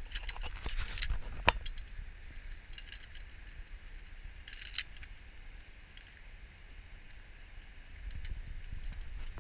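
Metal zipline hardware, carabiners and harness fittings, clinking and jangling in a cluster over the first second and a half. Single sharp clicks come about a second and a half in and again near five seconds, over a low wind rumble on the microphone.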